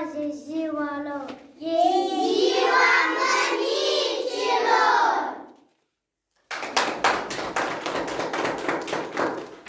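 A group of children singing together, louder from about two seconds in. The singing breaks off, and after a short pause comes about three seconds of hand clapping.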